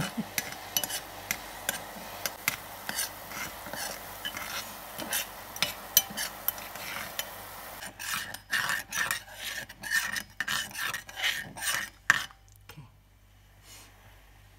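Thin metal spoon stirring hot water in an enamel pot to dissolve a stock cube, clinking and scraping against the enamel sides and bottom. About eight seconds in the scraping grows louder, in quick strokes about two a second, and it stops shortly before the end.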